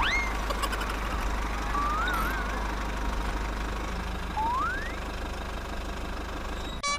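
Steady low engine rumble, with short whistle-like glides over it: one rising at the start, a wavering one about two seconds in, and another rising one after about four seconds.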